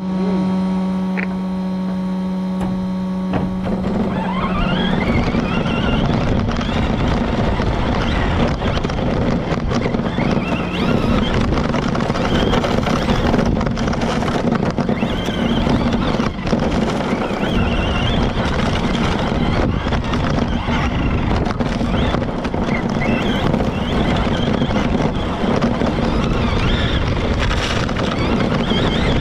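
Onboard sound of a Yokomo YZ2-T 1/10 electric RC stadium truck on dirt. A steady hum for the first four seconds or so, then the electric motor's whine rises as it pulls away. After that it goes up and down with the throttle over a constant rattle of tyres and grit.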